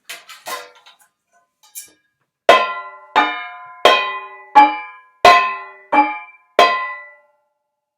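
Small kitchen dishes struck with a sock-padded kitchen spoon like a mallet: seven ringing strikes in an even rhythm, about one every 0.7 seconds, the pitch shifting from strike to strike as different dishes are hit.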